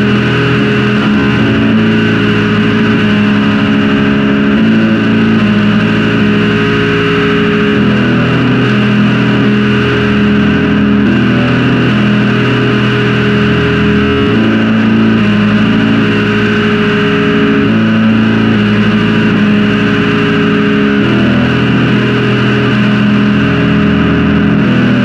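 Raw black metal: heavily distorted guitars play sustained chords over drums, the chord changing every three to four seconds in a loud, dense wall of sound.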